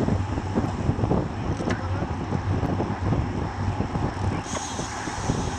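Wind rushing and buffeting over a bike-mounted camera's microphone at about 44 km/h, mixed with the road noise of racing bicycles in a pack.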